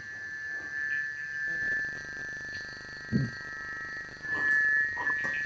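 Steady high-pitched electronic tone, growing louder about four seconds in, with a brief low sound about three seconds in.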